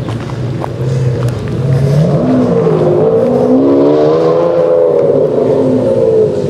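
Ferrari Enzo's V12 with a Larini decat and Tubi straight-through exhaust, revving up about two seconds in, then rising and falling in pitch several times as it approaches; very loud.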